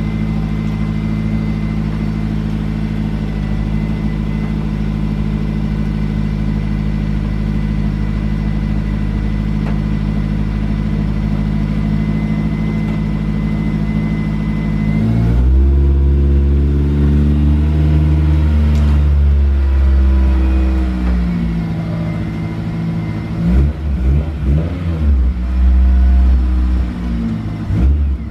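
Car engine idling steadily. About halfway through, its note changes and grows louder, and near the end it is revved in several quick blips.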